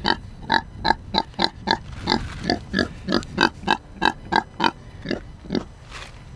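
Pig grunting in a steady run of short grunts, about three or four a second.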